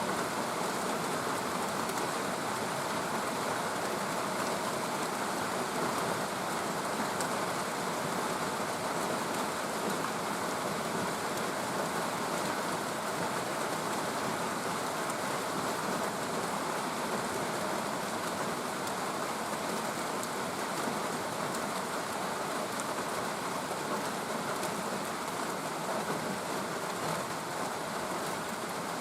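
Steady rain falling and pattering on surfaces, an even hiss of drops that stays level throughout.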